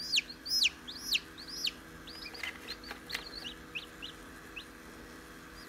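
A newly hatched chick peeping: a rapid series of high, falling peeps, several a second, loud at first, then fainter and more spaced out after about two seconds before dying away.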